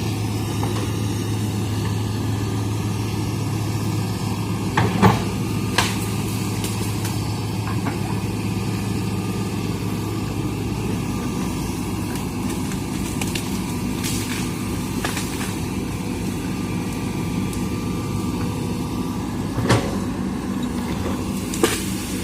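Hitachi excavator's diesel engine running steadily, its note shifting about halfway through, with a few sharp cracks of bamboo snapping as it is pushed over: two close together early, two more near the end.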